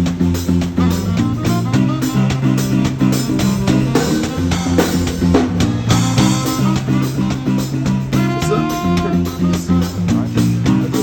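Upbeat music with plucked guitar and a steady drum beat.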